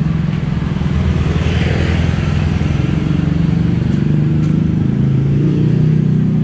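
Motorbike engines in street traffic, running steadily with their pitch shifting a little, and a short hiss about two seconds in.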